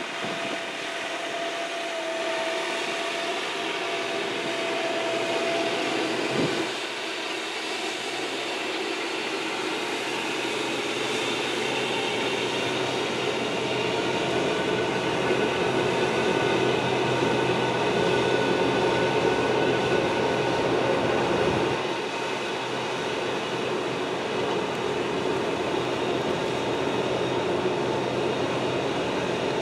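Fendt tractor engine running steadily as it pulls a multi-row seed planter across a field: an even mechanical drone with a few held whining tones.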